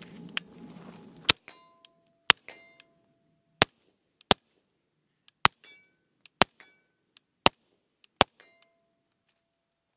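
Suppressed 8-inch .223 AR-15 pistol fired eight times in slow, steady succession, about one shot a second. Brief ringing tones follow several of the shots.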